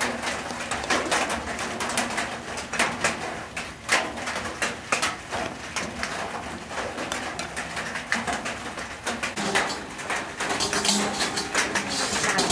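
Wooden spatula stirring a wet chopped-vegetable mixture in a glass bowl: a run of irregular clicks, knocks and squishes as it turns the food and strikes the glass.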